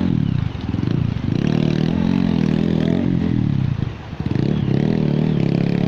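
Dirt bike engine revving up and dropping back again and again as the bike is ridden and pushed through a rocky river crossing, with two brief lulls in the throttle.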